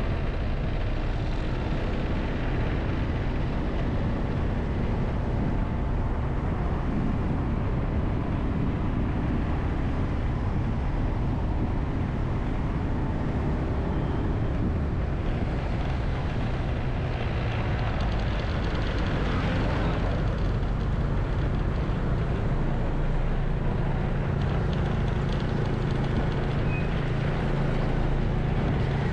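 Steady vehicle noise from riding through city traffic, with a low engine drone that grows stronger in the last few seconds.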